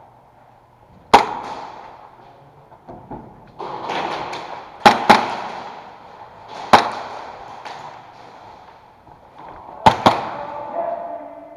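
Sharp cracks of airsoft shots echoing in an enclosed space: six in all, two of them in quick pairs, with rustling movement between them.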